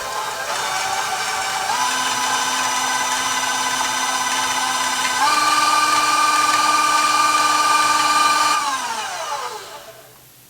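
Electric mixer creaming cream cheese, butter and vanilla extract: a steady motor whine that steps up in speed twice, about two and five seconds in. Near the end it winds down and stops.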